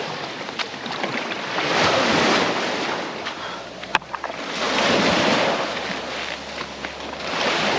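Surf breaking, swelling and falling about every three seconds, with wind buffeting the microphone. A single sharp click about four seconds in.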